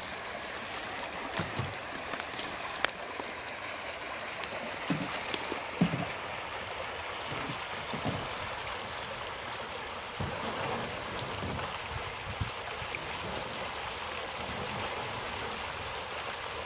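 Shallow river rushing steadily over a rocky riffle. A few sharp clicks sound in the first three seconds, with scattered low thumps later.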